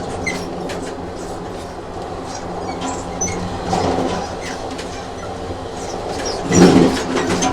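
Train running on rails: a steady low rumble with wheels clicking over the track and short, high squeaks. It swells louder about six and a half seconds in.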